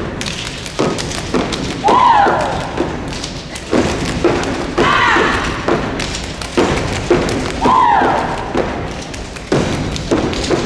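Step team stomping and clapping, many sharp thuds and claps in quick succession, in a large hall. A voice's rising-then-falling shout comes about every three seconds over the stepping.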